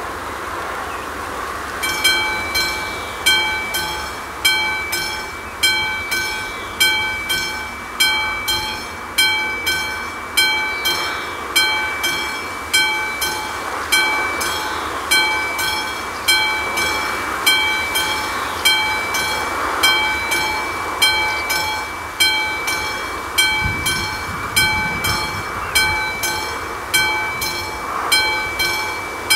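Classic mechanical warning bell of an AŽD 71 level-crossing signal starting about two seconds in and ringing at a steady pace, roughly one stroke a second: the crossing is warning of an approaching train.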